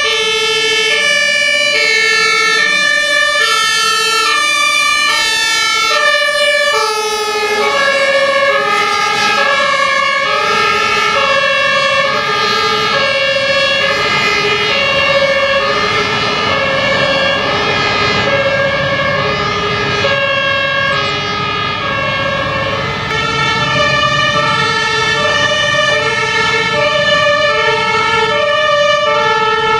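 Two-tone sirens (Martinhorn) on German fire engines, each sounding a steady high-low alternation. From several seconds in, a second siren overlaps out of step with the first, and the low running of a truck engine passes under them in the middle.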